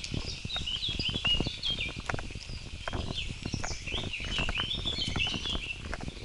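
A runner's quick footfalls thudding on a dirt woodland trail, with birds chirping in rapid, broken phrases above them.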